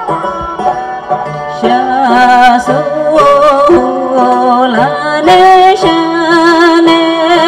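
Live Tibetan folk music on dramyen lute and hammered dulcimer, plucked and struck notes. About two seconds in, a louder held melody with a wavering vibrato comes in over them: a woman singing with a two-string bowed fiddle.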